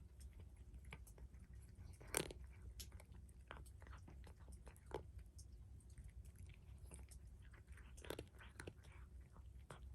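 Cat chewing food with faint, irregular crunching, louder about two seconds in and again near eight seconds.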